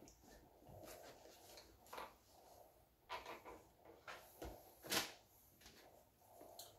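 Faint, scattered knocks and scuffs of a cardboard game box being handled on a wooden table, the sharpest about five seconds in.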